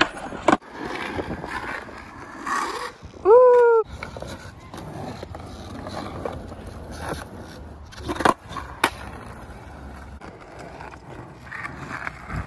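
Skateboard wheels rolling on asphalt, with sharp clacks from the board's tail popping and landing: one near the start and two close together about eight seconds in. A brief, loud, pitched shout, the loudest sound, comes about three seconds in.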